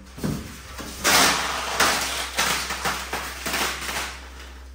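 Thin white plastic protective wrap rustling and crinkling in a run of swishes as it is pulled down off a flat-screen TV; the loudest swish comes about a second in.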